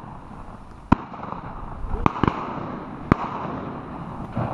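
Shotgun shots, several sharp reports about a second apart, heard at a distance across the marsh.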